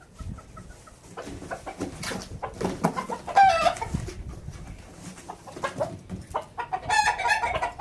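Game chickens calling: a drawn-out pitched call about three and a half seconds in and another starting near the end, over scattered knocks and rustling.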